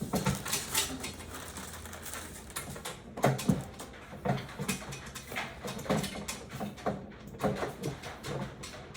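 Irregular clicks and knocks of parts and screws being handled and fitted while assembling a printer.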